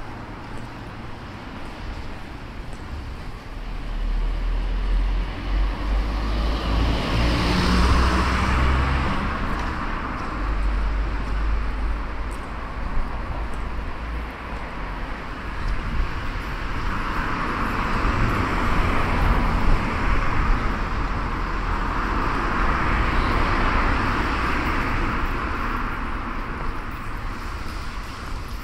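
Street traffic: cars passing, their tyre and engine noise swelling and fading over a steady low rumble, one pass about seven seconds in and more passes in the second half.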